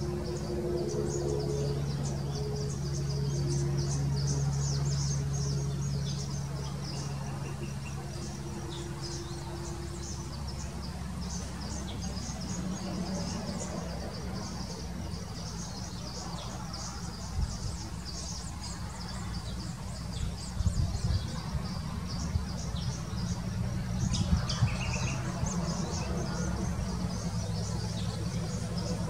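Outdoor ambience of continuous high, rapid chirping over a low steady hum. The hum is strongest in the first third, and a few short knocks come in the second half.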